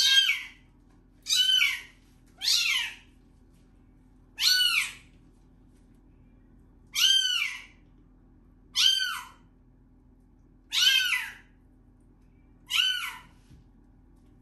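A young kitten meowing repeatedly in high, loud cries, eight calls about one to two seconds apart, each rising and then falling in pitch, as it protests being held wet in a sink for a bath.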